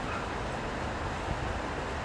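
Steady city street noise: a continuous hiss of traffic on wet roads and rain.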